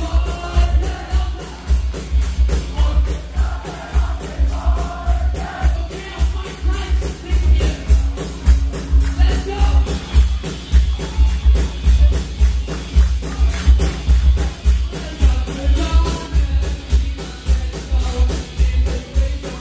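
A live band plays a song on drum kit, electric guitar and vocals, driven by a steady, heavy kick-drum beat. A sung lead voice comes in over the band in places.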